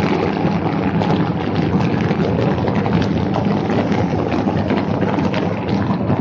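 DJI Phantom 3 Professional quadcopter in flight, its four propellers and brushless motors heard close up from the camera mounted on it: a steady, loud buzzing drone mixed with wind rushing over the microphone.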